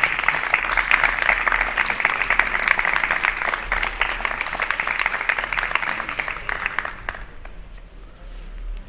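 A group of people applauding, with dense clapping that stops about seven seconds in.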